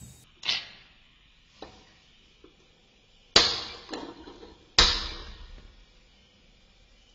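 Kitchen utensils clanking: a light clink near the start, then two loud sharp clanks about a second and a half apart, each ringing briefly, with a few faint ticks between.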